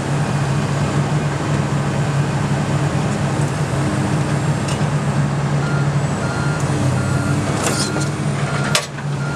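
Heavy diesel construction machinery running steadily at a low idle. From a little past halfway a backup alarm beeps about once or twice a second, and a few sharp metallic knocks come near the end.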